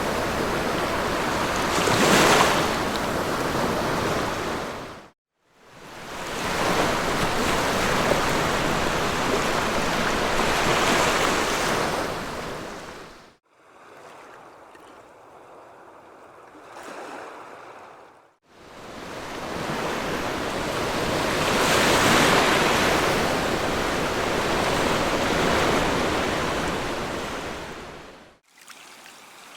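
Sea waves washing onto a beach, the surf noise swelling and easing over several seconds, with some wind on the microphone. The sound stops abruptly and restarts several times, and one stretch near the middle is much quieter.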